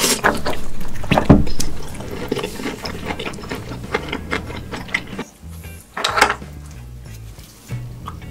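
Background music with shifting bass notes, over scattered clicks and clatter.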